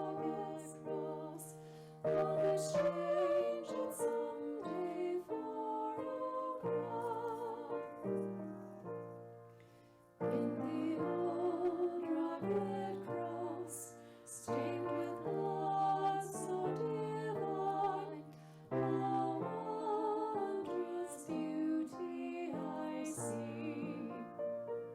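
Slow, gentle music: held low notes under a melody line with vibrato. The phrases pause briefly, with one fade and restart about ten seconds in.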